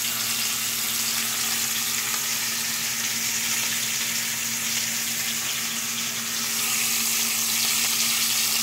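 Pork chops frying in plenty of olive oil in a stainless steel pan, a steady sizzle.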